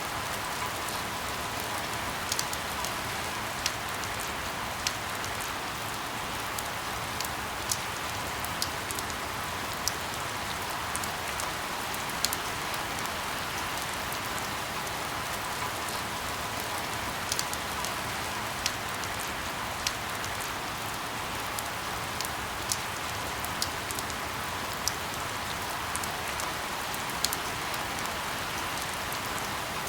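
Steady rain hissing, with single drops ticking sharply and irregularly on a hard surface every second or two.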